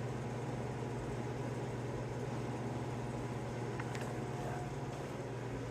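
Steady low machine hum with no change in level, and a faint light tick about four seconds in.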